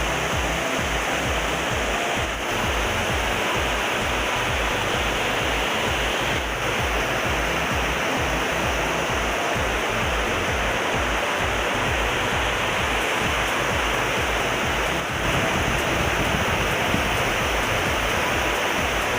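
Waterfall: water falling onto rock, a steady rushing noise.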